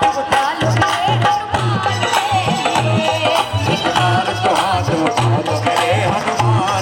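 Indian devotional music with a steady, repeating drum beat and a wavering melody line over it.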